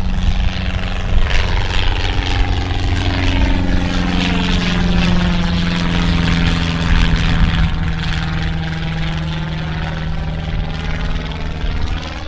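Light single-engine propeller airplane flying overhead, its piston engine and propeller droning steadily. The pitch drops a little about three to four seconds in as it passes, with a swirling, phasing quality as it goes over.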